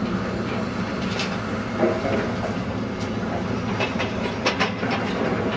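Heavy demolition grabber at work: its diesel engine running with a steady low rumble, and sharp metal knocks and clanks from the grab and the rubble it handles, several of them in the second half.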